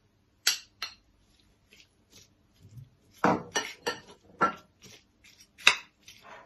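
Kitchen utensils and a bowl clinking and tapping in a string of irregular, separate strokes, louder and closer together around the middle, as sliced onion and ginger are added to chicken marinating in the bowl.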